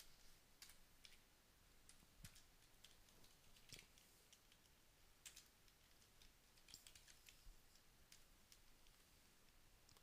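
Faint, irregular keystrokes on a computer keyboard, typing a line of code.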